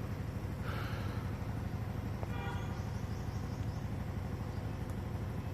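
A vehicle horn gives one short toot about two seconds in, over a steady low rumble.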